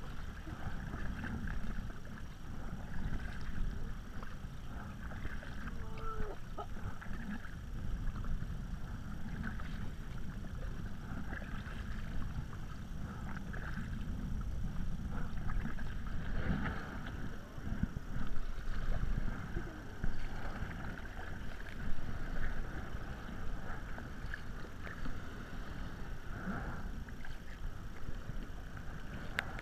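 Kayak paddles splashing through the sea in irregular strokes, with water washing against a tandem sit-on-top kayak's hull, over a steady low rumble of wind on the microphone. A few strokes stand out louder past the middle.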